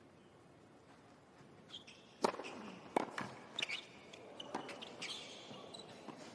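Tennis rally on a hard court. After a hushed opening, a racket strikes the ball about two seconds in, and further sharp hits and bounces follow roughly every half second to a second. Short, high squeaks of tennis shoes on the court come between the hits.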